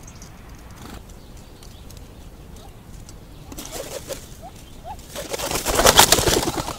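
Wings flapping at a seed tray: a short flutter as a pigeon takes off about four seconds in, then a loud burst of wing-flapping from common pheasant hens lasting over a second near the end. A few short, soft rising calls sound in between.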